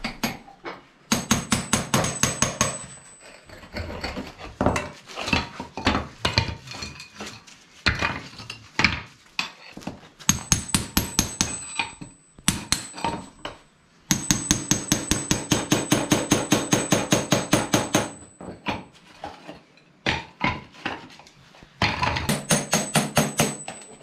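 Hammer striking a chisel to chip glazed ceramic floor tiles off concrete, in several runs of quick, evenly spaced blows with short pauses between.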